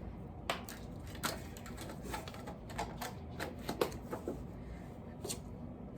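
Irregular light clicks and taps of a measuring spoon against a small pigment jar and mixing container while half a teaspoon of powdered pigment is scooped out and tipped in.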